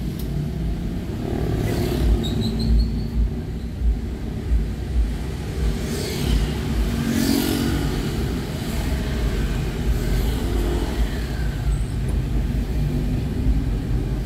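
Street traffic heard from a moving vehicle: a continuous low rumble of engine and road noise. Cars and motorcycles pass close by, with brief louder whooshes about two, six and seven seconds in.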